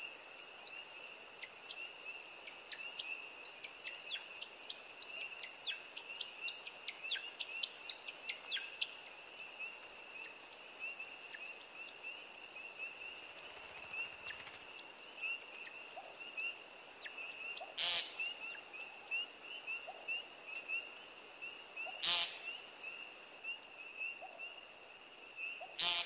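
Recording of an American woodcock's sky dance. First comes the twittering wing whistle of its display flight, a rapid run of high chirps lasting about nine seconds. Then come three loud 'peent' calls about four seconds apart, all over a steady high-pitched background trill.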